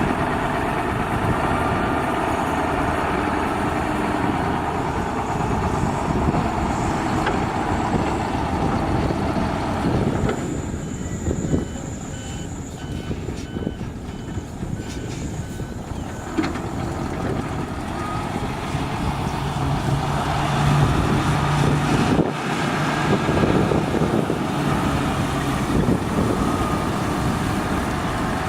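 Heavy diesel construction machinery running under load. A reversing alarm beeps in an even rhythm for several seconds in the middle.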